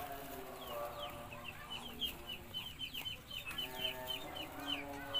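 Poultry calling: drawn-out clucking calls, and from about two seconds in a fast run of short, high, falling chirps, about five a second.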